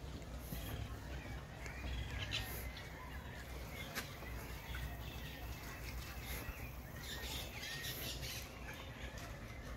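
Birds chirping faintly and on and off over a steady low rumble, with one sharp click about four seconds in.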